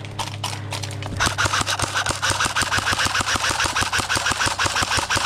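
Airsoft electric gun firing a long full-auto string: a rapid, even rattle of shots starting about a second in, after a few scattered shots. A steady low hum runs underneath.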